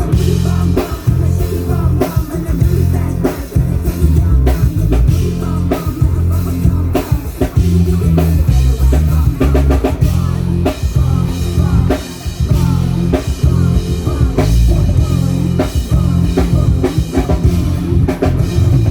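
Live band music during a sound check: drum kit, heavy bass and guitar playing loud and steady.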